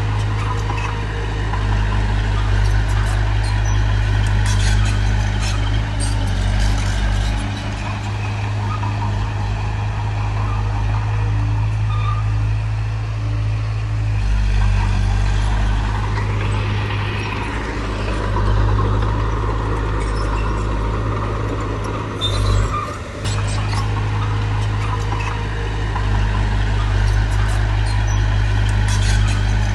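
Diesel engine of a heavy construction machine running steadily with a low, even drone. About halfway through, a hissing noise swells for a few seconds, and the engine sound dips briefly a little later.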